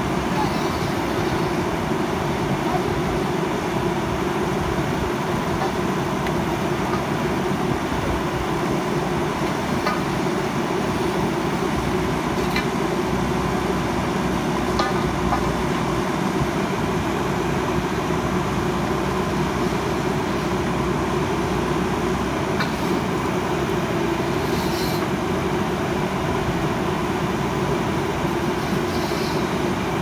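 JCB backhoe loader's diesel engine running steadily while the machine works, with a few faint clicks over it.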